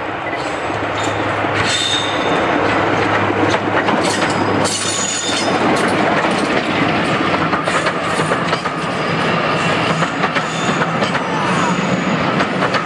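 A BR Sulzer Type 2 diesel locomotive passes close with its engine running. Its coaches follow, their wheels clattering over the rail joints. Brief high squeals come from the wheels on the curve about two and five seconds in.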